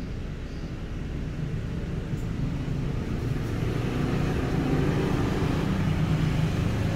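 Low, steady engine rumble of a nearby motor vehicle, slowly growing louder over the second half.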